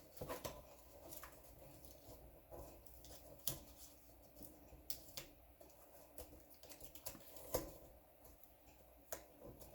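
Paper and small craft pieces being handled on a desk: faint rustling with scattered light clicks and taps, the sharpest about three and a half seconds and seven and a half seconds in.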